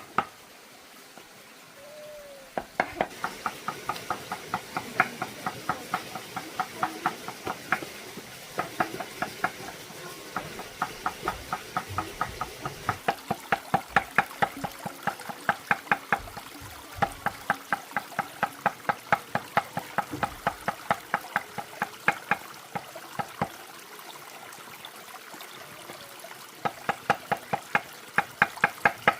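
Kitchen knife chopping on a cutting board in fast, even strokes, about four a second, in long runs broken by short pauses.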